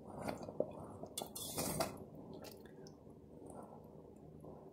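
A wire whisk stirs a thick cream-cheese sauce in a stainless steel pot, making wet squishing sounds, with the wires clicking and clinking against the pot. It is busiest in the first two seconds, then settles to softer stirring.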